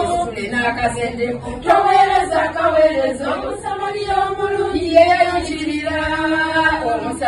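A group of women singing together, holding long notes in phrase after phrase.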